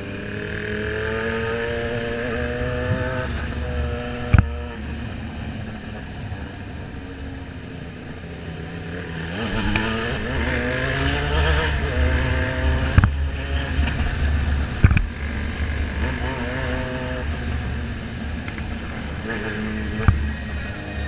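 Motorcycle engine under way: its pitch falls as it slows over the first few seconds, then climbs as it accelerates hard about ten seconds in, with a few sharp clicks along the way.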